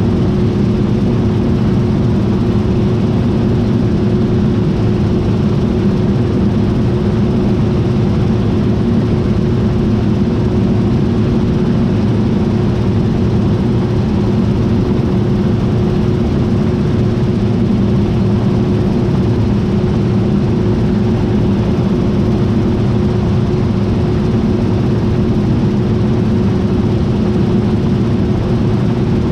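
John Deere T660i combine harvester running steadily: a constant engine drone with a steady hum held at one pitch, unchanged throughout.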